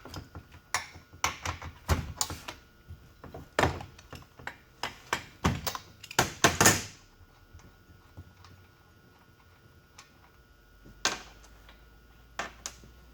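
Clicks and knocks of tools and saw parts being handled on a shop workbench, as the saw is readied for a compression test: a quick irregular run of clatter for about seven seconds, then a few single knocks near the end.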